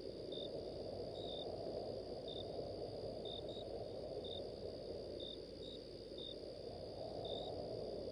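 Cricket chirps for a night-time ambience: short high chirps, some in pairs, about once or twice a second, over a steady low rumble.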